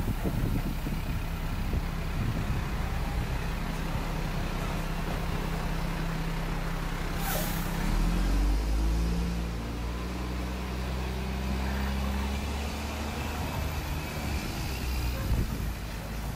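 Diesel dump trucks idling, with a short air-brake hiss about seven seconds in, then a truck engine revving up as it pulls away.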